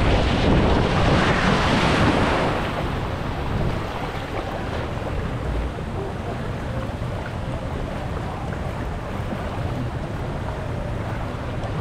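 Rushing water and wind buffeting the microphone during a ride down a water slide. The rush is loudest in the first two or three seconds, then settles to a lower, steady rushing.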